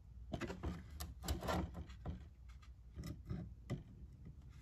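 A 3D-printed ABS pistol frame being handled and turned over in the hand: a quick run of rustles and knocks in the first two seconds, then a few separate clicks.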